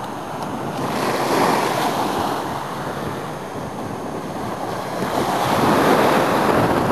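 Small sea waves breaking and washing up a sand beach, swelling louder twice, with wind buffeting the microphone.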